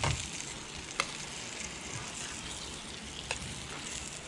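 Thin corn-flour-and-egg-coated fish pieces frying in hot oil in a pan, a steady sizzle. Three sharp clicks sound over it: at the start, about a second in, and just past three seconds.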